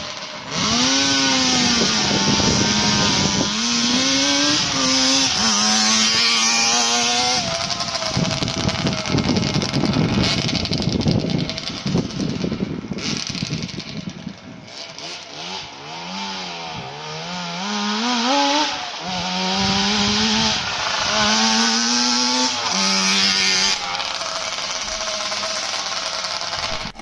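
Suzuki Stinger T125's two-stroke twin engine running and being revved up and down repeatedly, with a quieter spell at lower revs about halfway through.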